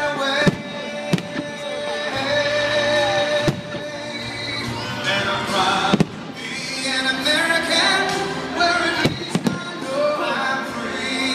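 Fireworks shells bursting in a handful of sharp bangs, the strongest about six seconds in, over loud music with singing.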